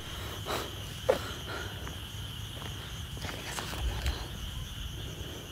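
Night insects chirping in a steady, continuous high trill, with a few soft footsteps on a paved path.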